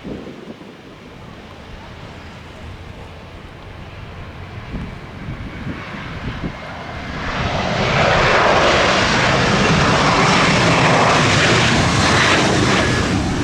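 Airliner engines passing close by: a low rumble for the first few seconds, then a loud engine roar swells in about seven seconds in and holds.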